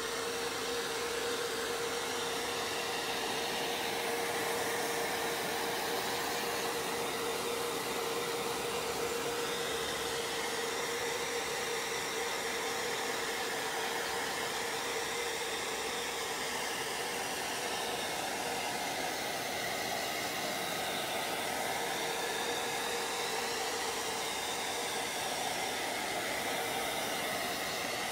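Handheld hair dryer running steadily: a constant hum under a rush of air, the upper part of the sound wavering as it is swept back and forth to dry wet acrylic paint on a canvas.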